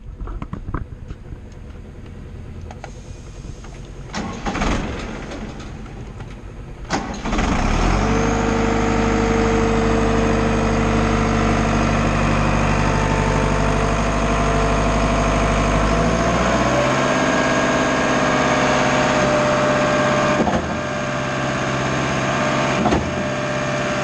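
Schwing WP-1000X trailer concrete pump's engine starting about seven seconds in, then running steadily; about halfway through its speed rises and it settles at a higher steady speed.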